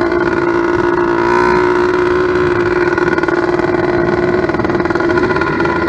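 Small two-stroke motorized bicycle engine, an 89.7cc steel-bore kit, running steadily at a fast idle on its first start. The idle is set too high while the carburettor is being adjusted.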